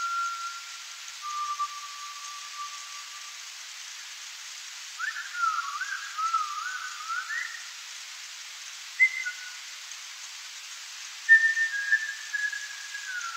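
Unexplained whistling: a series of long whistled notes, some held level, some wavering up and down, and one sliding down near the end, with short gaps between them, over a steady hiss.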